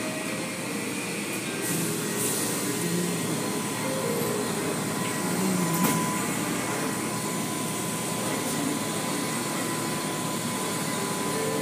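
Automatic car wash running: a steady rush of water spray and wash machinery, with a thin, steady whine underneath.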